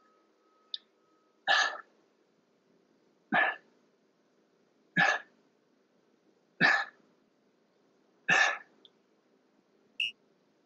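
A person's sharp, forceful breaths out under exertion, six of them in a steady rhythm about every second and a half to two seconds.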